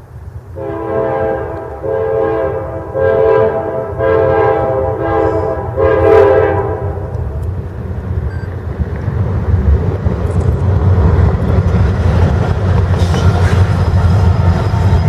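Locomotive multi-chime air horn sounding a chord in a run of blasts for the first several seconds, followed by the train rolling past with a low rumble and rail noise that builds toward the end.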